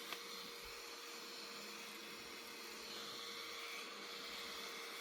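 Small battery-powered waist fan running at a low speed setting: a faint, steady motor whine at one pitch over a soft hiss of air, with a single click just after the start.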